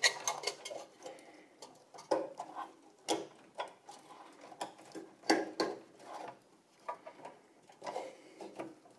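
Power-supply cable connectors being pushed into their sockets on a server motherboard: irregular plastic clicks and knocks with the rustle of the wiring being handled.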